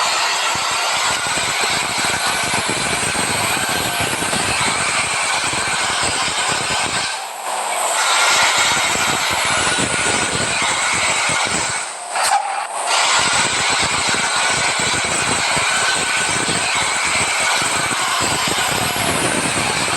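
Restu intercity bus with a rebuilt exhaust running on the road: continuous engine and exhaust noise that drops away briefly twice, about seven and twelve seconds in.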